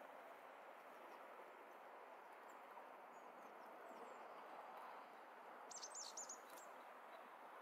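Faint, steady outdoor background noise with a few small bird chirps, including a short quick run of high chirps about six seconds in.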